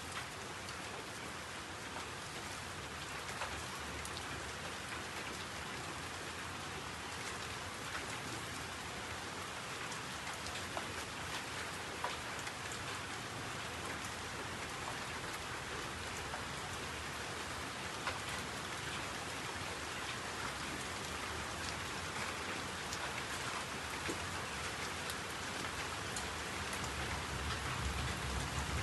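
Steady rain falling, with scattered drip ticks and a low rumble building near the end.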